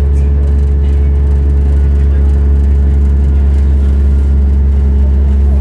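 Diesel train engine running with a steady low drone, heard from inside the carriage.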